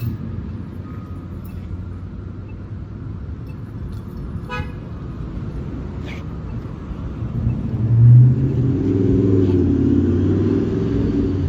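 A motor vehicle's engine running close by, growing louder about two-thirds of the way in and then holding steady at a low pitch, as a vehicle drives up and idles nearby.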